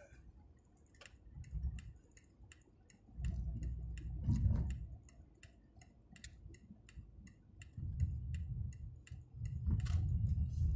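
Car cabin sound picked up by a dashboard-mounted phone: low road and engine rumble that swells about three seconds in and again near the end, with light, quick ticking about three times a second.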